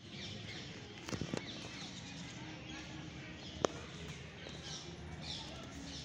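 Outdoor background murmur with faint chirping bird calls, broken by a few sharp clicks: two close together about a second in and the loudest about three and a half seconds in.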